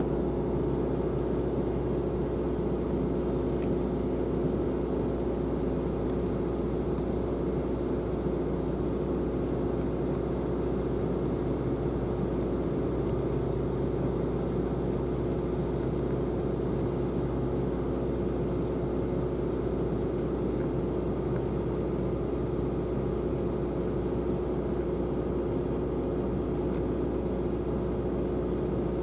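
Steady low mechanical rumble with a constant hum, unchanging throughout, as from an engine or machinery running.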